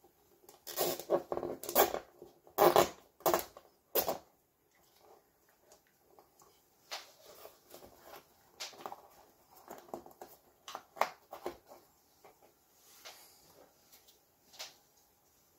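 Gloved hands handling wires and connectors on a 3D printer: rustling, tapping and clicking, loudest in a run of sharp rustles and taps in the first four seconds, then scattered softer clicks.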